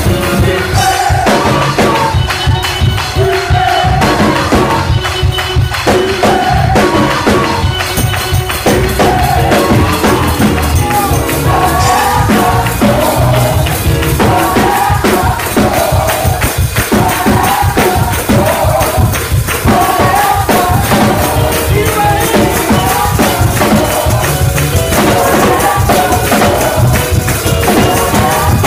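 Gospel choir singing with a live drum kit, and a tambourine shaking steadily.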